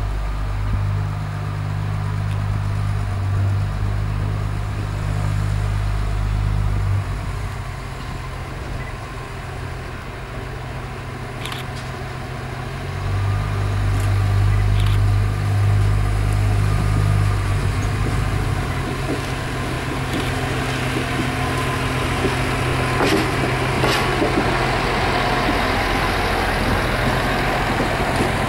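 Diesel railcar SA133 running at low speed, its diesel engine's low hum shifting in pitch a few times and getting louder from about halfway as it draws near, with rolling wheel and rail noise growing toward the end.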